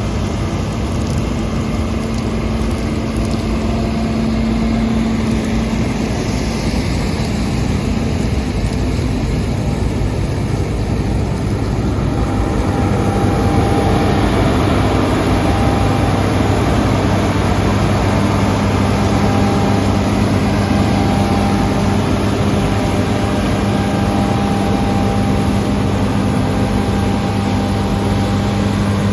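Combine harvester running steadily while cutting oilseed rape: a constant engine and machinery drone with a steady hum. It gets slightly louder about halfway through.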